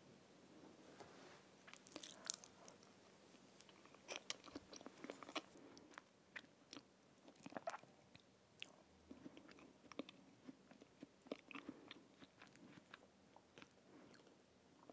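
Close-up eating sounds: quiet chewing of a spoonful of tiramisu, with many small wet clicks and smacks. Near the end a wooden spoon scoops into the glass cup again.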